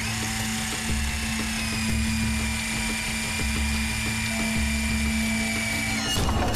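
Cartoon soundtrack: background music with a repeating low beat under a sustained high, drill-like electronic whine that dips slightly in pitch about two seconds in and holds steady. The whine stops near the end with a quick sweeping whoosh.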